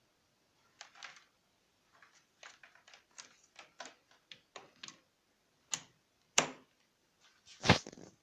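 A run of small sharp clicks and taps from handling a small device, with three louder knocks in the second half.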